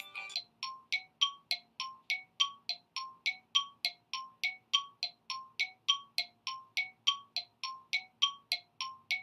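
Background music: a bell-like figure of short, ringing notes repeating evenly at about three notes a second, alternating between a higher and a lower pitch.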